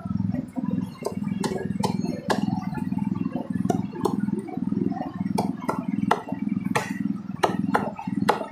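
Cleaver chopping roast duck on a thick round wooden chopping board: more than a dozen sharp chops at an uneven pace, over a steady low rumble.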